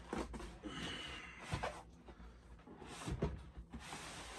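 Cardboard packaging being handled and rubbed, with a few soft, low thumps.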